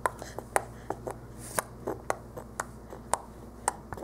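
An irregular series of light, sharp clicks and taps, about three or four a second.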